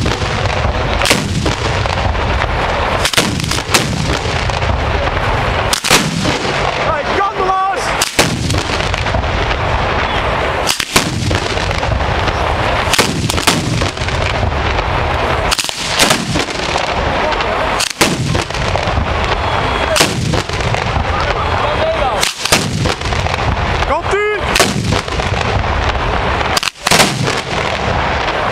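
Ground-level fireworks battery (batteria alla bolognese) going off: a continuous dense rattle of firecracker explosions, with louder single bangs every second or two. A couple of brief whistling glides cut through the rattle, about a third of the way in and near the end.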